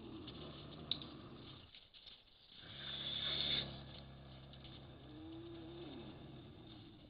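Mountain lion growling low in long rumbling breaths, broken by a short pause about two seconds in, with a louder hissing rasp about three seconds in.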